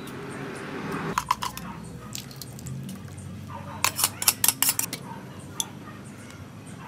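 Sauce poured into a hot steel wok of vegetables, with a hiss at the start. A few light clicks follow, then a small stainless-steel bowl is knocked sharply against the wok about eight times in quick succession, about four seconds in.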